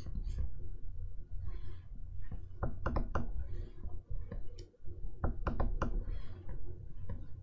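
Plastic stylus nib tapping and stroking across the screen of an XP-Pen Artist 15.6 Pro pen display: soft scratchy strokes, with a quick cluster of sharp taps about three seconds in and another a little before six seconds, over a steady low rumble.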